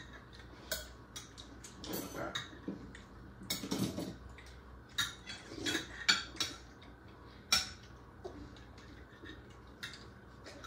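Forks and spoons clinking and scraping on dinner plates as people eat: short, sharp clinks at irregular intervals.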